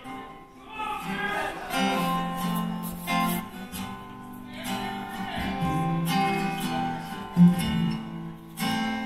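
Acoustic guitar played solo as a slow song intro, its strummed chords ringing out, with one strum louder than the rest about seven seconds in.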